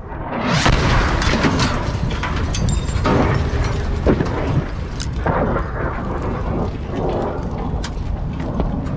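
AGM-65 Maverick missile warhead detonating close by: a sudden loud blast about half a second in, then a long heavy rumble with scattered sharp cracks.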